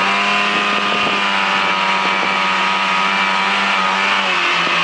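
Snowmobile engine running steadily under way at speed, its pitch dipping slightly about four seconds in.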